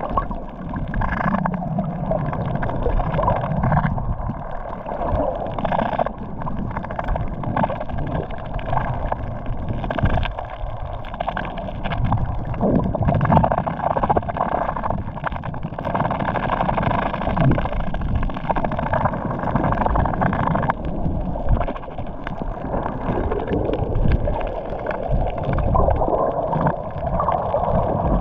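Sea water sloshing and gurgling around a boat, a continuous uneven wash with no distinct knocks or engine tone.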